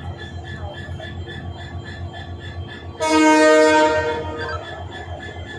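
Diesel locomotive's horn sounding once, a loud blast of about a second and a half roughly three seconds in, over the steady low running of the locomotive's engine as it creeps toward the camera.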